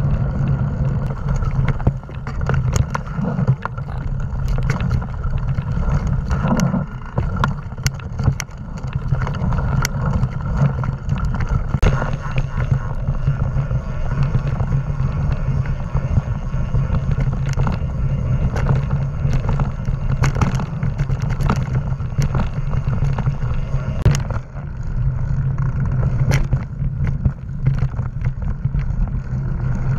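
Mountain bike riding heard from a bike-mounted action camera: a steady low rumble of wind buffeting the microphone and tyres rolling on a dirt path, with frequent sharp clicks and rattles as the bike goes over bumps.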